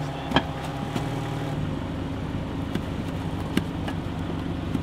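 Jeep Wrangler engine idling steadily, with a sharp knock about half a second in and a few fainter clicks later.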